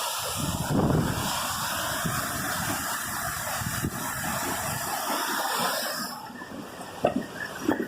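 Steady rushing hiss of falling water from a waterfall. It drops away about six seconds in, and a few sharp knocks follow near the end.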